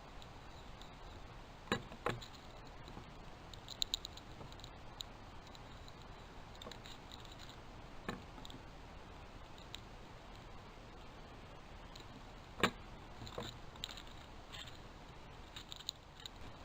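Scattered sharp clicks and knocks over a steady hiss, the loudest about two-thirds of the way in, with a quick run of small ticks near the end.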